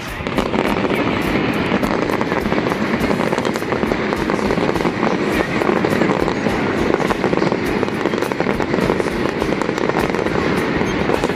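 Fireworks display crackling: a dense, continuous run of rapid small pops that sets in abruptly and keeps going without a break.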